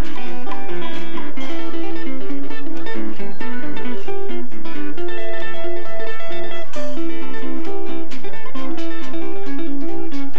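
Street band playing acoustic music: an acoustic guitar strummed and picked, with washboard percussion ticking along and upright bass notes underneath.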